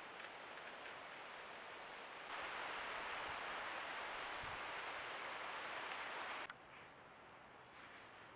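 Steady outdoor hiss from a trail camera's microphone, with no distinct animal sounds or footsteps. It steps louder about two seconds in and drops back about six and a half seconds in, and a faint high electronic whine runs underneath throughout.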